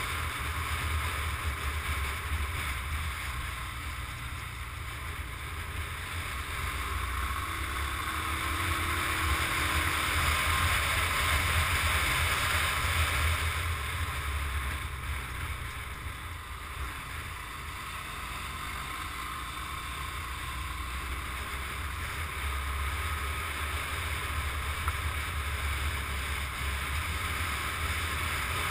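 Small motorcycle riding along at speed: wind rumbling on the microphone over the running engine and road noise. It grows louder about ten seconds in and eases off a few seconds later.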